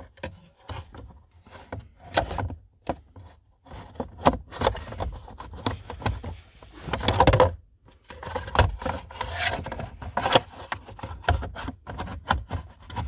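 A short piece of hose and the surrounding plastic dash parts being pushed and worked into place by hand: irregular plastic knocks, clicks and rubbing, with a longer scraping rub about seven seconds in.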